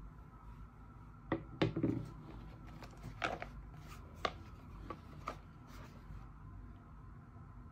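Hands handling boxed products and packaging: a short cluster of knocks and taps about a second and a half in, then scattered single clicks over the next few seconds, over a faint steady room hum.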